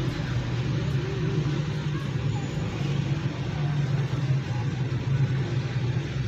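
A car's engine idling with a steady low hum, heard from inside the cabin.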